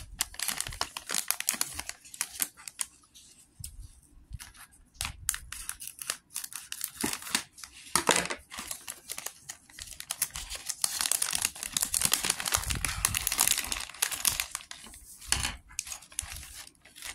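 A LEGO minifigure blind bag being torn open and crinkled by hand, an irregular crackling with many small sharp clicks.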